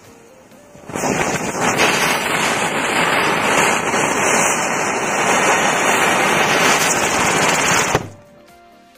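Diwali ground spinner (chakri) firework burning with a loud, steady hiss that starts about a second in and cuts off suddenly near the end.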